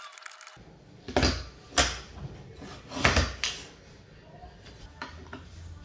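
Birch plywood pieces being set down and shifted on a work mat, giving several separate wooden knocks and clatters. It opens with a brief run of small clicks from a chisel paring the star-shaped cutouts.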